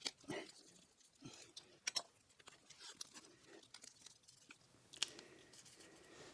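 Adhesive tape being pulled off the roll, torn and pressed down by hand: faint, scattered crackles and sharp ticks.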